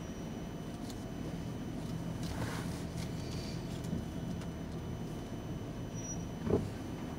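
Vehicle engine running at crawling speed, heard from inside the cab as a steady low hum, with a few creaks and clicks and one thump near the end as the truck rolls over rough trail.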